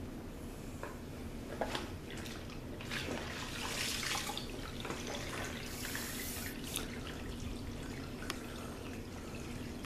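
Water splashing and dripping as a wet mop is worked in its bucket, with a few light knocks and a steady low hum underneath.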